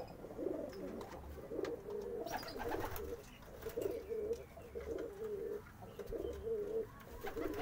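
Domestic pigeons cooing, a string of short warbling coos about one a second, with a few sharp clicks about two and a half seconds in.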